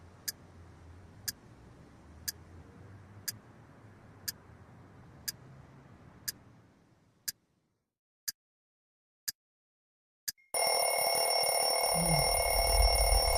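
Alarm clock ticking about once a second, then, about ten seconds in, its alarm goes off with a loud, steady ringing tone.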